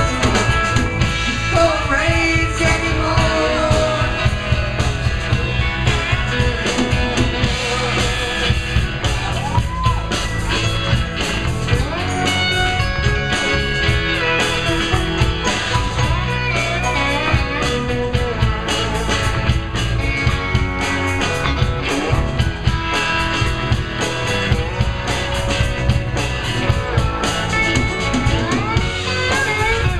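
Live rock band playing, with electric guitars, electric bass and drum kit, and a male lead singer's voice over them.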